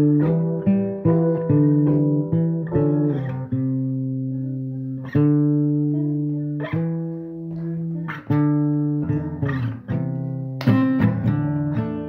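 Guitar playing a slow line of single plucked notes that ring out over low held bass notes. Near the end it changes to faster, brighter strummed chords.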